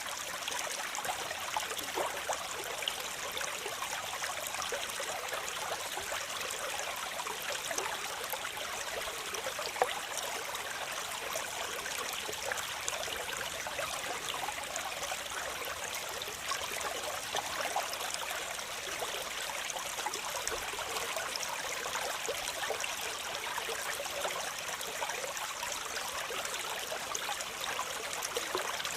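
Steady rush of falling and splashing water, a continuous hiss with many small splashes, from a waterfall.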